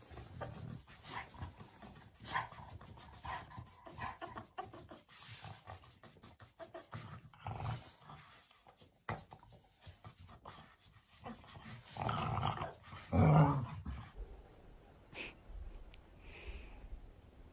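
A dog's sounds at close range: scattered small noises and breathing, then a louder drawn-out vocal sound from the dog about twelve seconds in, lasting a second or two.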